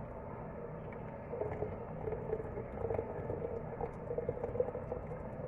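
A dark hot drink poured in a thin stream from a pot's spout through a mesh strainer into a ceramic pitcher: a steady trickling splash.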